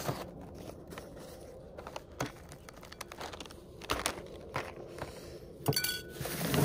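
Scattered clicks, knocks and light crinkling of food packaging and containers being handled, with a brief squeak near the end.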